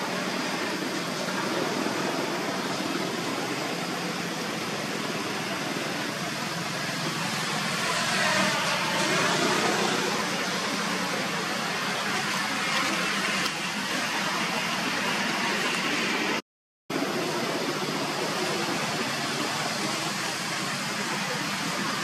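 Steady outdoor background noise, an even hiss with no distinct calls, cut off completely for a moment about two-thirds of the way through.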